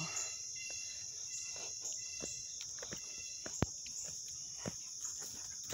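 Steady high-pitched chorus of insects such as crickets, with scattered soft footsteps on the trail and one sharper click about three and a half seconds in.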